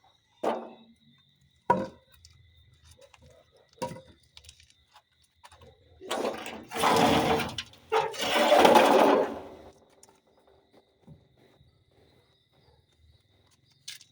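A power tool's motor runs in two short bursts of about a second and a half each, after a few light knocks and handling sounds.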